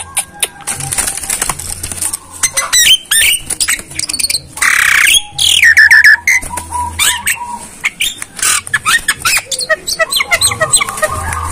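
A myna calling, a mix of harsh squawks, chirps and short falling whistles, with a long rasping squawk about halfway through. Sharp clicks sound throughout.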